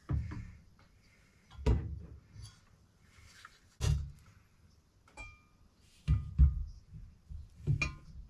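A series of about six separate knocks and clinks of hard objects being handled and set down, spaced irregularly. A few of them carry a short ringing tone.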